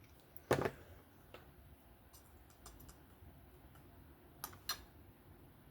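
Scattered light clicks and taps of the metal parts of a disassembled folding knife being handled: one louder knock about half a second in, faint ticks after it, and two quick clicks near the end.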